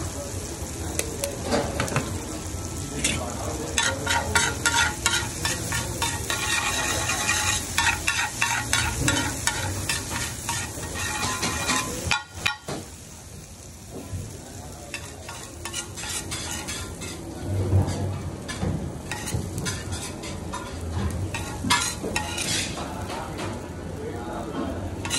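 An egg dish sizzling on a large flat steel griddle, with metal spatulas clicking and scraping on it all through. There is a brief lull about halfway through.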